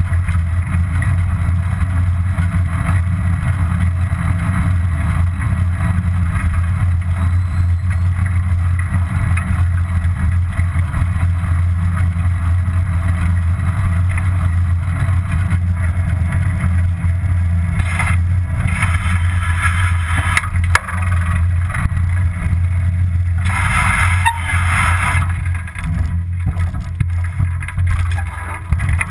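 Steady low wind rumble on the microphone and road noise from a bicycle being ridden, with two short, louder hissing stretches in the second half.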